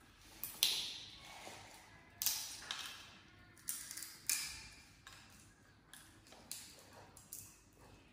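Sunflower seeds being cracked open: irregular sharp little clicks and cracks, about one or two a second.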